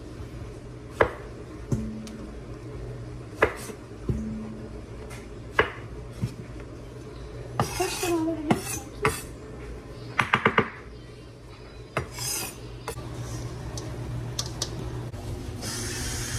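Kitchen knife knocking against a wooden cutting board as strawberries are cut, sharp single knocks a second or two apart with a quick run of four about two thirds through. Just before the end, tap water starts running into a stainless steel bowl.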